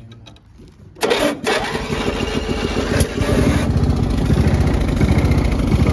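A Stiga Park ride-on mower's single-cylinder petrol engine starting on its start button about a second in, then running with a steady rapid beat.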